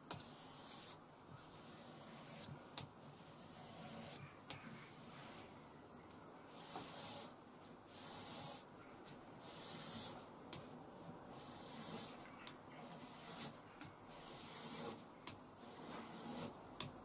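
Puukko knife blade stroked back and forth over micromesh abrasive paper, faint repeated scratchy rasps about once a second: its scandi bevel being honed on a grit that feels aggressive and rough.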